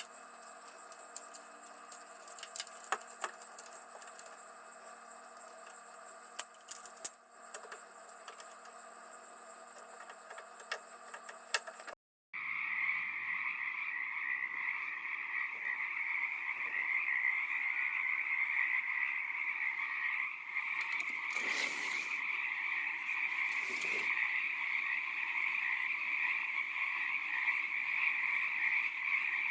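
Steady outdoor chorus of calling frogs and insects, a continuous high trill at first with scattered sharp clicks. After a brief dropout about twelve seconds in, a dense, louder frog chorus follows.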